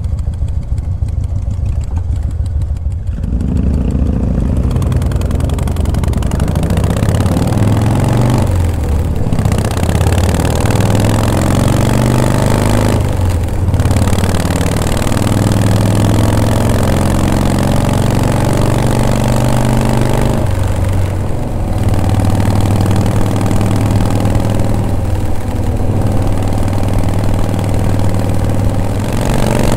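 Vintage Harley-Davidson V-twin motorcycle engine running under way, heard from the rider's seat. It is quieter for the first few seconds, then grows louder as the bike pulls up to speed. The engine sound briefly drops away about four times.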